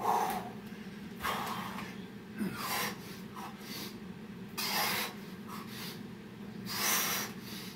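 Heavy, forceful breathing from burpee exertion: short, sharp breaths every one to two seconds.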